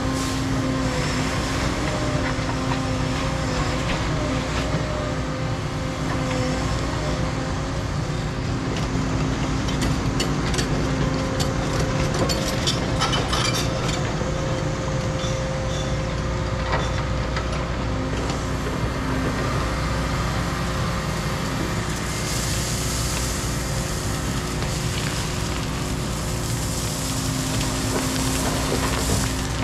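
Caterpillar 335 excavator's diesel engine and hydraulics running steadily under load while it works, with a stretch of clattering and scraping about ten to fourteen seconds in.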